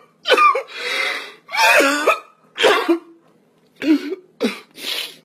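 A man sobbing and crying out in short, broken cries with a brief pause a little after halfway.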